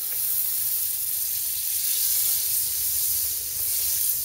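Butter sizzling as it melts in a hot non-stick frying pan: a steady high hiss that starts as the butter touches the pan.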